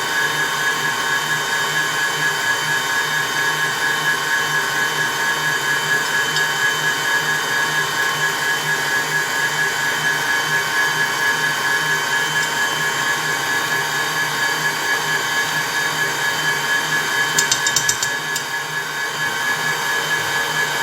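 Electric mixer running steadily at speed, beating a cake batter of eggs, sugar, oil and yogurt. A brief rattle comes near the end.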